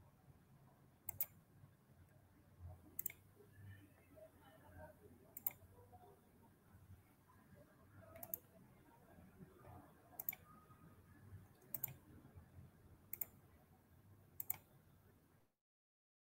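Faint, separate clicks of a computer mouse, about eight of them a second or two apart, over a low room hum; near the end the audio cuts out to dead silence.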